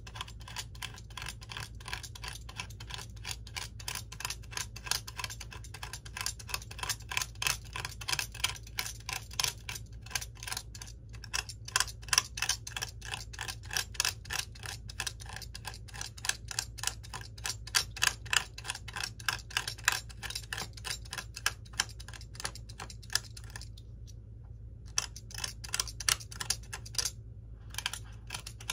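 Rapid, steady light tapping of a small hand tool against the plastic cockpit tub of an RC model plane, several taps a second, with a few brief pauses. A faint steady low hum sits underneath.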